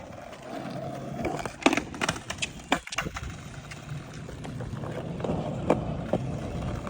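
Skateboard wheels rolling over pavement, with several sharp clacks of the board.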